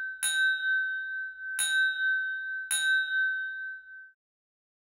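A bell-like chime struck three times on the same note, a little over a second apart, each strike ringing on. The last ring fades out about four seconds in.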